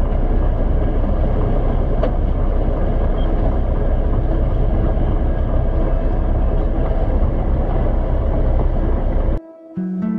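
Steady low rumble of the sailboat running under engine, with a single click about two seconds in. The sound cuts off suddenly near the end, and soft guitar music begins.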